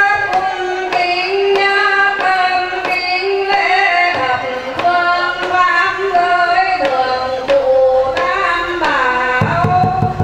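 A woman singing a slow chant-like song into a microphone, in long held notes that glide from one pitch to the next.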